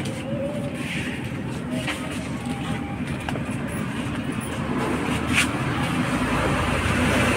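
Steady low rumble with hiss, growing louder about six seconds in, with a couple of faint clicks.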